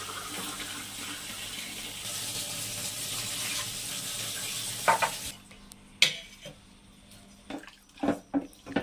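Water running in a steady hiss, which stops abruptly a little over five seconds in. It is followed by a few short clinks and knocks of kitchen utensils.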